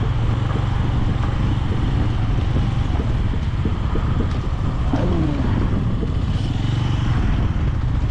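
Motorcycle engine running while the bike is ridden, with a falling tone about five seconds in and a few light knocks.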